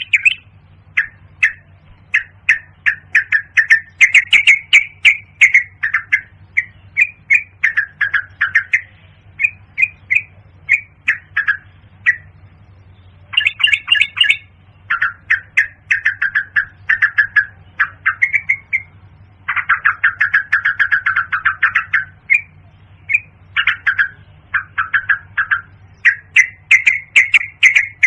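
Yellow-vented bulbul calling: rapid strings of short, sharp notes in phrases of one to a few seconds, separated by brief pauses.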